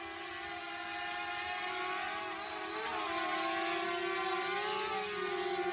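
DJI Mavic Air quadcopter's propellers whining as it comes down on its precision return-to-home, growing gradually louder as it nears. The pitch wavers a little about halfway through and again near the end as the motors adjust.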